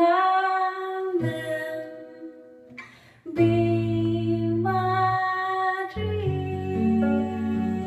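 A woman singing slow, long-held notes of a ballad, accompanied by a plucked Godin guitar. The singing breaks off briefly about one and three seconds in.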